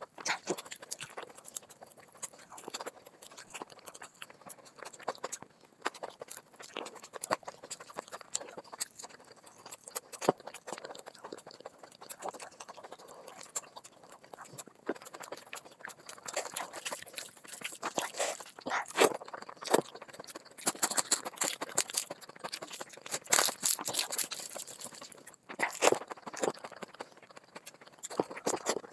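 Close-miked ASMR eating by hand: wet chewing and smacking of rice and chicken curry, with fingers squishing rice into the gravy. The sound is a dense run of short clicks that grows busier in the second half.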